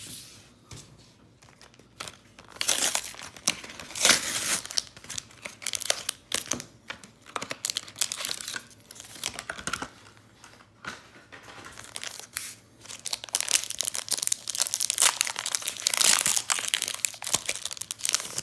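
Foil Pokémon booster pack wrapper crinkling and being torn open by hand. The crinkling comes in two spells, a short one a few seconds in and a longer one in the second half.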